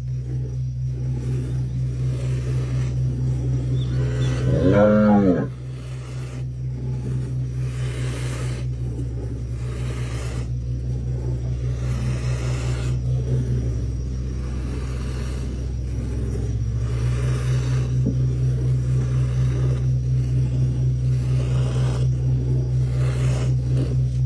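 Hand milking: milk squirting in regular strokes into a metal pot of froth, over a steady low hum. A cow moos once, loudly, about five seconds in.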